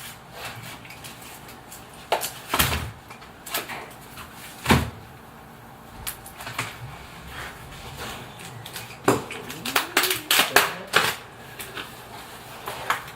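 A cardboard shipping box being opened and its packaging handled: irregular rustles, scrapes and sharp knocks, with two louder thumps early on and a quick run of clatter near the end.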